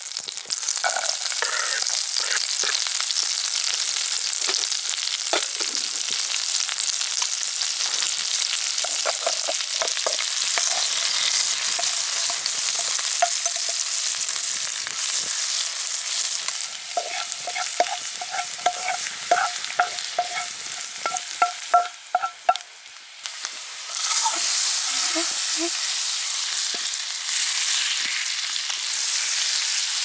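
Butter and chopped garlic sizzling in a frying pan over a small wood-burning folding stove: a steady frying hiss, with a run of quick ticking pops in the middle. The sizzle briefly dies down a little past three-quarters through, then picks up again.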